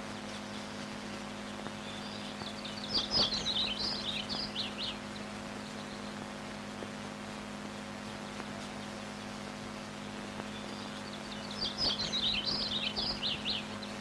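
A songbird sings twice, each time a quick phrase of high chirping notes lasting about two seconds, the second about nine seconds after the first. A steady low hum runs under it.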